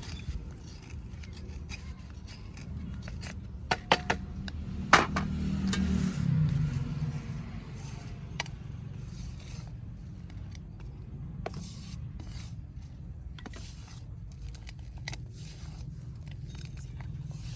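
Baked clay kulhad cups cracking and crunching as they are broken, with scattered sharp cracks, the loudest about four and five seconds in, and scraping of clay pieces in between.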